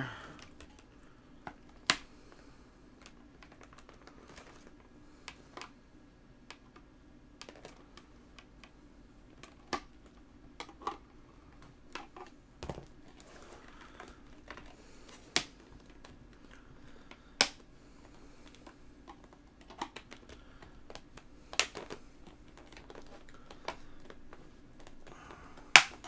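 A screwdriver prying at a plastic external hard drive enclosure, giving irregular sharp clicks and cracks as the case's clips and seams give way, a few louder snaps among many small ones. A faint steady low hum runs underneath.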